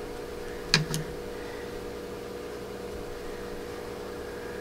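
Steady mechanical hum, with two sharp clicks close together a little under a second in.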